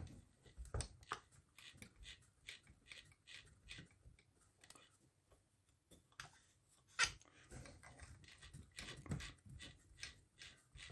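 Faint, irregular clicks and light knocks from a sewing machine being handled, with one sharper click about seven seconds in.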